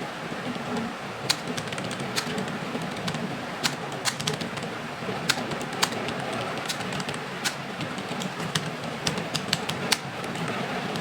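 Computer keyboard keys being typed on: irregular keystroke clicks, a few a second, over steady background noise.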